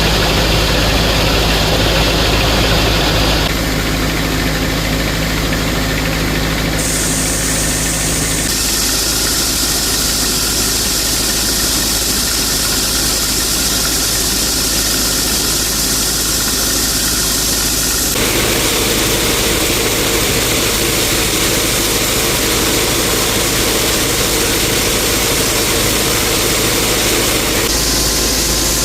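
Heavy farm machinery engines running steadily during corn harvest, heard in several short stretches, each with its own even engine drone, that change abruptly a few times.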